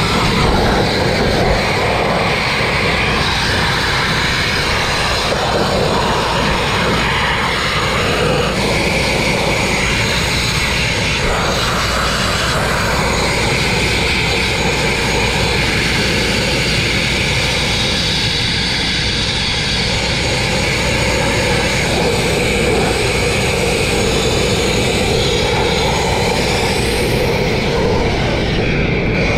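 Abrasive grit-blasting nozzle running continuously: a loud, steady hiss of compressed air and grit striking steel, stripping rust and paint. Its tone shifts now and then.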